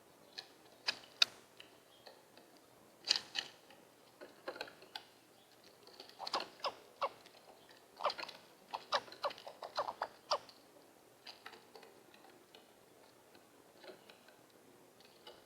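Brown-headed cowbird at a feeder making a scattered series of sharp clicks and taps, a few at a time. They come thickest in a run of quick clicks from about six to ten seconds in.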